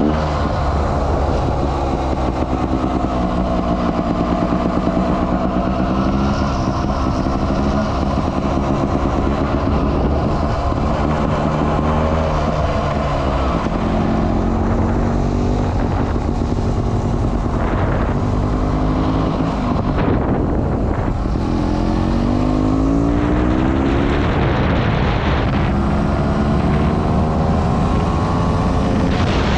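Sherco trials motorcycle engine running while riding on pavement, its pitch rising and falling with the throttle, with a few clear rising revs in the second half.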